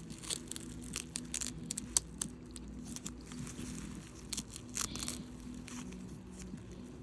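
Packaging wrap being worked and torn off a resin ball-jointed doll's hand, with irregular crinkling, rustling and small crackling ticks.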